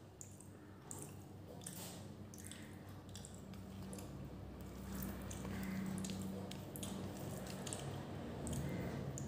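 Wet, sticky clicks and squishes of fingers pressing and gathering curry-soaked rice on a steel plate, eating by hand, at irregular short intervals.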